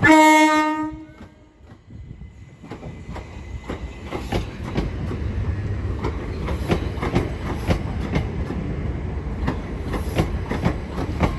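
A Class 377 Electrostar electric train sounds one horn blast of about a second, then its wheels clatter over rail joints and points as it pulls away, the clicks growing louder and denser.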